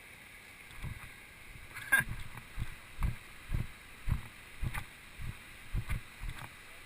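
Hiker's footsteps on a dirt trail, dull thuds about two a second that begin about a second in, with a sharp click near two seconds.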